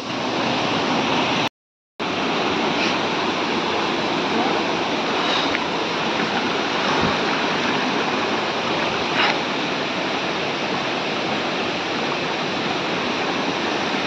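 Steady rush of falling water from a waterfall and its rocky stream, cut to silence for about half a second near the start.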